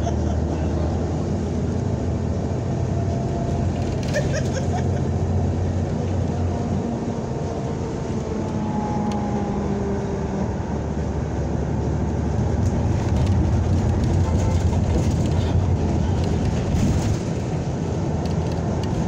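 Cabin sound of a 2004 NABI 60-BRT articulated city bus under way: a steady engine drone under road and rattle noise, getting louder for a few seconds past the middle.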